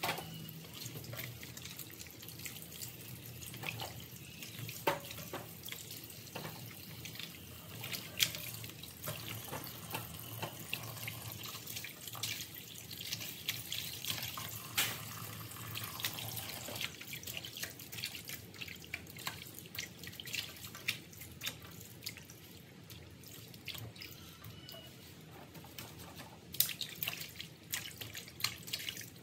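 Tap water running into a plastic colander of vegetables in a stainless steel sink, with irregular splashes and clicks as hands rub and turn the wet leafy greens.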